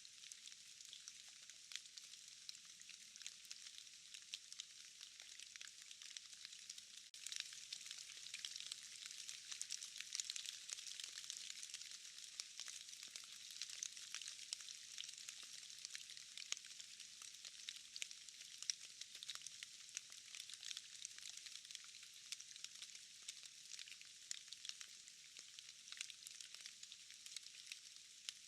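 Steady forest rain: a faint, constant hiss of rainfall with many separate drops falling from trees and moss. It grows a little louder about seven seconds in.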